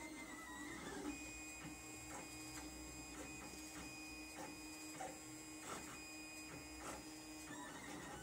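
Lulzbot TAZ 3 3D printer running a print: its stepper motors give off a steady, layered whine as the print head and bed move, with scattered light clicks. The whine sets in about a second in and changes near the end.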